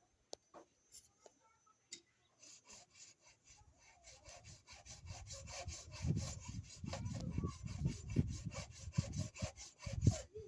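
Hand saw cutting a plastic drainage pipe with quick, even back-and-forth strokes, starting about two seconds in and growing louder.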